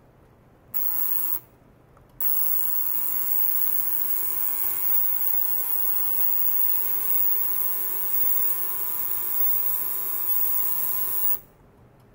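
Ultrasonic cleaner bath running with stainless steel containers standing in it: a steady buzzing drone of many high tones over a hiss. It switches on for about half a second, stops, then runs again for about nine seconds before cutting off suddenly.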